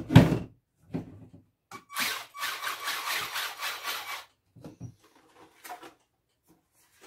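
A sharp knock near the start, then an RC car's electric motor and drivetrain whirring for about two seconds, drill-like, as the rear wheels are run up in the air after switch-on.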